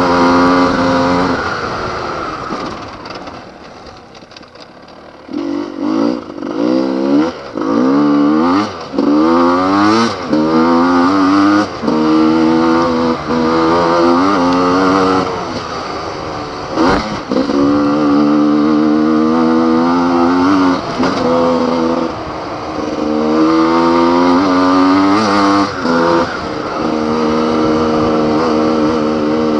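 Enduro motorcycle engine under load, ridden hard on a dirt trail and held at high revs. About two seconds in it drops off for a few seconds, then comes back in quick throttle bursts that rise and fall before holding steady again. A single sharp knock comes around the middle.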